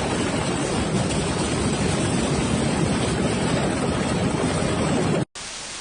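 Floodwater rushing in a loud, steady torrent, heaviest in the low end. It cuts off abruptly a little after five seconds in, and a quieter rushing sound follows.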